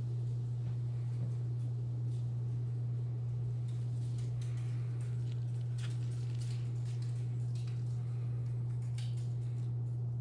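Coolant glugging and splashing as it pours from a plastic jug into a radiator filler neck, in scattered irregular gurgles. A steady low hum runs underneath and is louder than the pouring.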